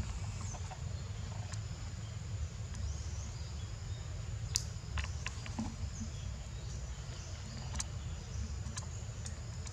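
Forest ambience: a steady high-pitched insect drone over a low rumble, with a few short, sharp clicks, the loudest about four and a half and eight seconds in.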